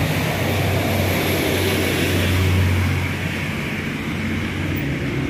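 Road traffic on a wet street: a low engine drone that swells about halfway through and fades near the end, over a steady hiss of tyres on wet road.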